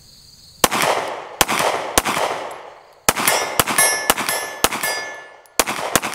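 Glock 43X 9mm pistol firing: three spaced shots, then a rapid string of about six, then another string beginning near the end, each shot echoing off the range. A high metallic ring hangs under the rapid string.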